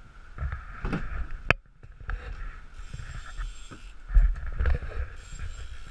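Wind buffeting the microphone over a steady rush of sea and hull noise aboard a sailboat under way, with uneven gusts. There is a single sharp knock about a second and a half in.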